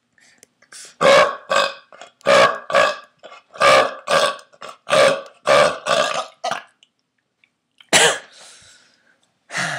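A man burping: a rapid string of about a dozen short burps, roughly two a second, then a pause and two more single burps near the end.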